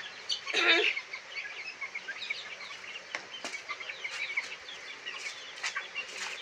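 A flock of month-old Sonali chickens cheeping and clucking while they feed, with many short high peeps throughout. One louder squawk comes about half a second in, and sharp clicks are scattered through.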